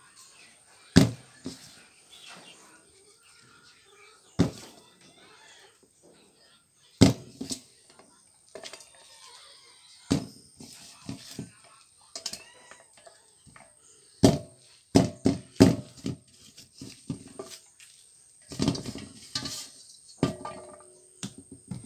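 Dull knocks of a green bamboo tube being stuffed with pieces of pork and tapped down on a table to pack the meat in, irregular single thuds at first and then a quick run of them about two-thirds of the way through.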